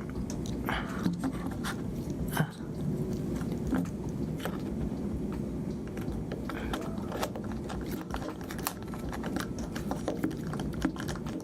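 Small irregular clicks, taps and light scrapes of tiny phone parts and tools being handled during reassembly, over a steady low hum.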